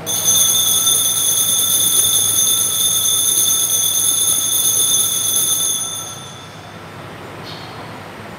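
Altar bells rung continuously at the elevation of the host during the consecration at Mass. They ring steadily for about six seconds, then die away.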